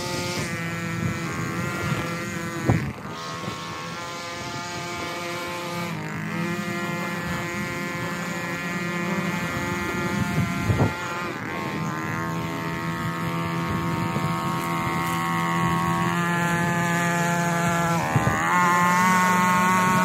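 String trimmer's small engine running throughout, its pitch rising and falling with the throttle as it cuts along the walkway and driveway edges. A few short sharp taps stand out over it.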